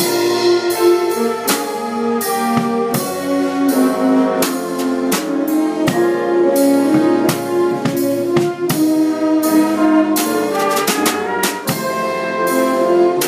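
A band playing a slow ballad: held horn chords that change every second or so, with a drum kit keeping time underneath in cymbal and drum strokes.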